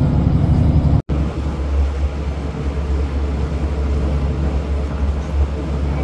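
A passenger ferry's engines droning steadily under a constant wash of noise while under way, with a momentary dropout about a second in.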